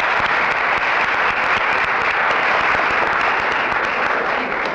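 Theatre audience applauding steadily at the curtain, a dense even clapping from the house.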